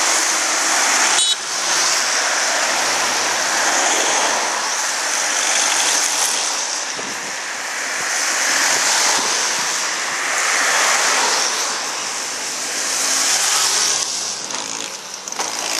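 A stream of cars passing close by one after another on a country road, the tyre and engine noise swelling and fading every couple of seconds.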